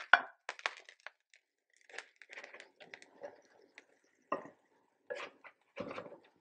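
Metal spatula scraping and knocking against a black iron frying pan as cooked pancakes are lifted out and set on a plate. There is a sharp clink at the very start, then scattered scrapes and a few knocks with short silences between them.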